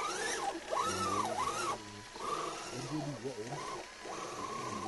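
Electric motor and geared drivetrain of a radio-controlled scale 4x4 crawler whining, rising and falling in pitch in several surges with short pauses between.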